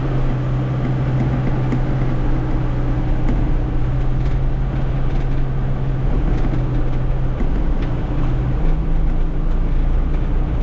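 John Deere 6110 tractor's diesel engine running steadily, a low even hum whose pitch steps up slightly about two-thirds of the way through.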